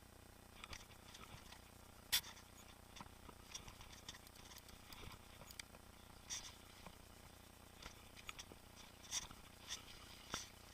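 Mountain bike rattling and clicking as it rides over the trail: faint irregular clicks and ticks, with one sharp knock about two seconds in and a few louder clicks near the end.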